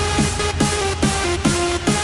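Instrumental electronic music with no singing: short synth notes that slide down in pitch about two or three times a second over a steady bass.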